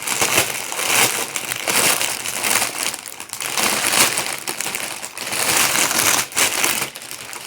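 Packaging being torn open and crumpled by hand: loud, continuous crinkling and crackling with irregular handling strokes.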